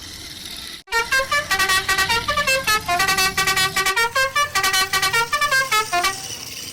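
A fast tune of short, buzzy, horn-like notes running up and down the scale, starting about a second in and stopping near the end.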